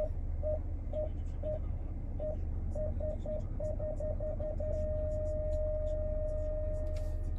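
2019 Chrysler Pacifica's parking-sensor warning chime while reversing: high, short beeps at about two a second that speed up to about six a second, then merge into one continuous tone a little over halfway through, the sign that an obstacle is very close behind. A steady low hum runs underneath.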